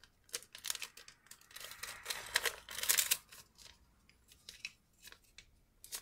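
A square of origami paper being unfolded and handled: crisp rustling and small crackling snaps. The rustling is busiest around two seconds in, with only scattered clicks after that.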